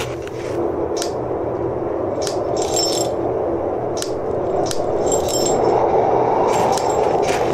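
Metal ice-climbing gear clinking and tapping, several sharp clinks with a light ring, over a steady rushing noise that slowly grows louder.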